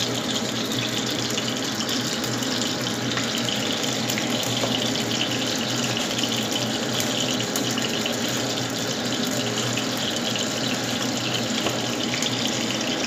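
Fish deep-frying in hot oil, a steady sizzle throughout, with light knife strokes on a wooden cutting board.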